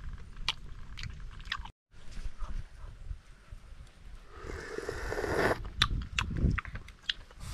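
Eating grilled snails: small clicks of shells and a picking stick, chewing, and about halfway through a louder sucking sound as the meat is drawn from a shell.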